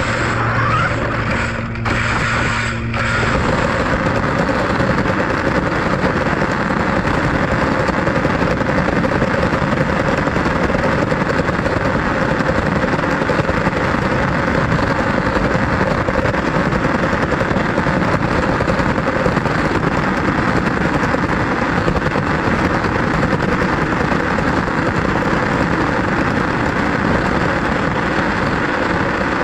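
Radio-controlled car driving, its motor and wheels on the pavement making a loud, steady noise that settles in about three seconds in.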